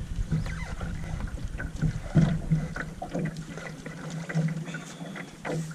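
Lake water lapping and splashing irregularly against the hull of a moving canoe on choppy water.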